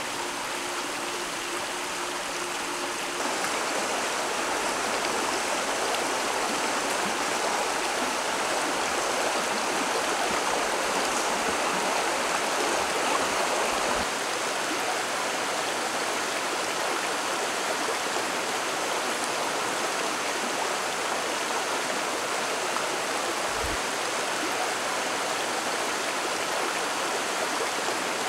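Shallow stream rushing over rocks in small rapids, a steady wash of running water. The tail of background music fades out in the first three seconds.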